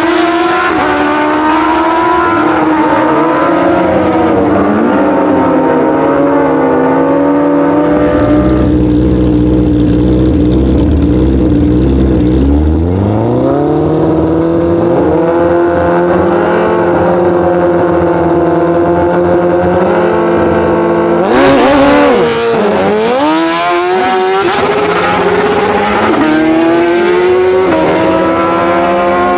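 Drag-racing superbike engines. First a pair winds up and shifts as it runs away down the strip. Then bikes at the start line hold steady high revs. About two-thirds of the way through they launch with a sudden loud blast, and the revs climb and drop through quick upshifts as they pull away.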